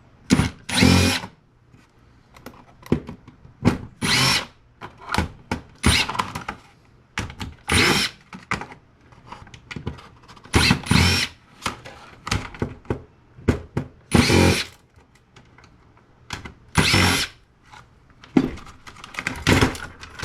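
Cordless power driver run in short bursts, about a dozen of them a second or so apart, backing screws out of the Cisco switch's boards.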